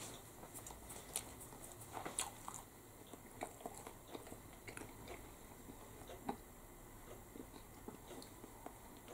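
A man chewing a mouthful of steak bridie, a meat pastry: faint mouth noises with small irregular clicks and crackles, a few of them a little louder.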